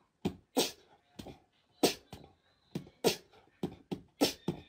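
Young kitten making a string of about ten short, sharp breathy puffs at irregular intervals, hiss- or spit-like.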